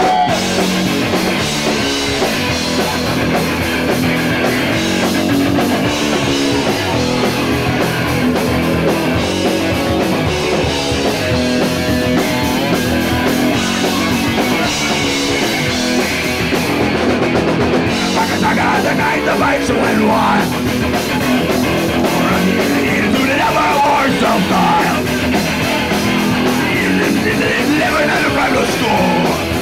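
Punk rock band playing a song live and loud, with electric guitars and drums.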